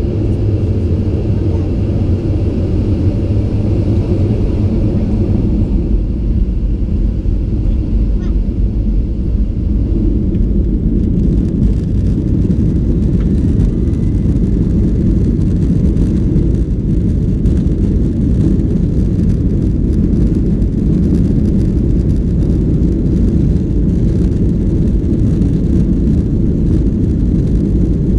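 Boeing 737-800's CFM56-7B jet engines running with a steady low rumble. A faint high whine fades out after about six seconds.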